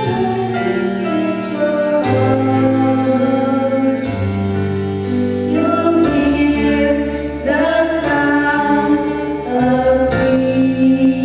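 A song with sung vocals over sustained chords, its bass note changing about every two seconds.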